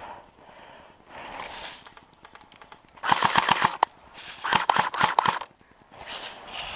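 Airsoft rifle firing two rapid full-auto bursts about three seconds in, each around a second long, half a second apart.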